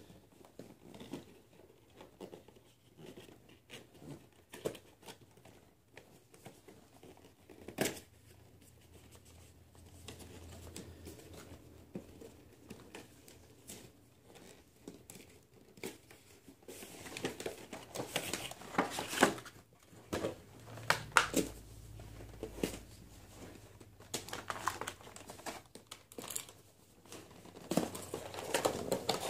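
A Marvel Legends action figure's cardboard box and plastic packaging being opened by hand: crinkling and tearing with scattered clicks, sparse at first and busier and louder in the second half.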